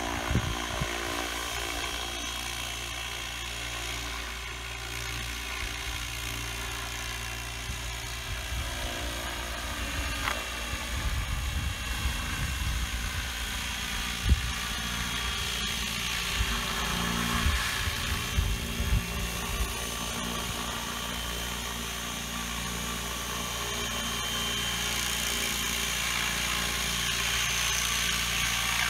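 Small unmanned helicopter in flight: a steady, high whine of its engine and rotors, with its pitch shifting slightly as it manoeuvres. It grows louder over the last few seconds as it comes closer. Bursts of low rumble come through in the middle.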